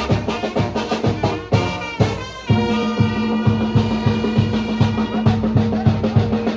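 Mexican brass band (banda) playing tlacololero dance music: brass comes in on a long held chord about two and a half seconds in, over a steady drum beat of about three strokes a second.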